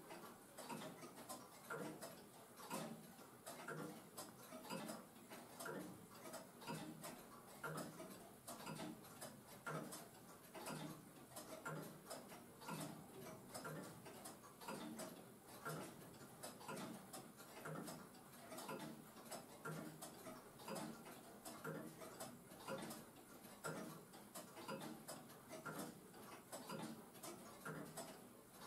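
Antique longcase clock's 8-day movement ticking: a steady, even tick-tock of the pendulum and escapement.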